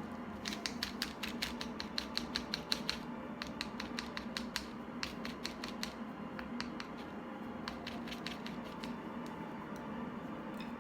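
Runs of quick, light clicks or taps, several a second, coming in short bursts with pauses between, over a steady low hum.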